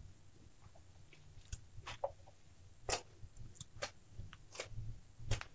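Hands kneading and squeezing crumbly rice-flour dough in a steel bowl: faint, irregular squishing with scattered small clicks and soft thuds.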